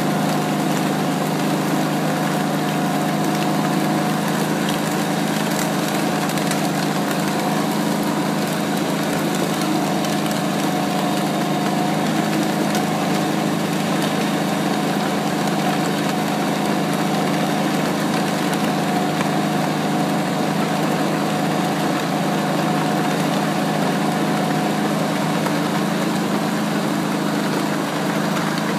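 Small engine running steadily at an even speed. It comes from the vehicle towing a child's toy tractor on a rope over gravel.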